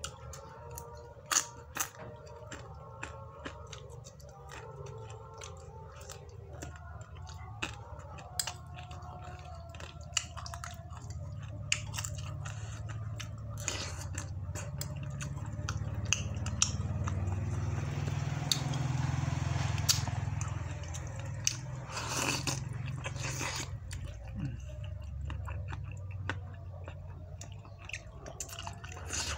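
Close-up eating sounds: a person biting and chewing crunchy crackers and spicy chicken noodles, with sharp crunches over wet chewing. A steady low hum runs beneath and swells louder about two-thirds of the way in.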